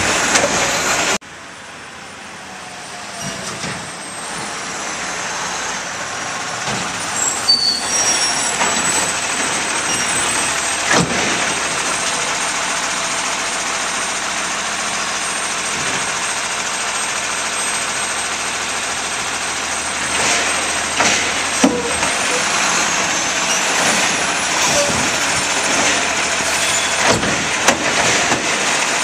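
Automated side-loader garbage truck (Labrie body) running as it pulls up to a curbside cart, then its lifting arm grabbing the cart and raising it to dump, with scattered sharp knocks and clanks. The sound drops abruptly about a second in, then builds back to a steady engine sound as the truck comes closer.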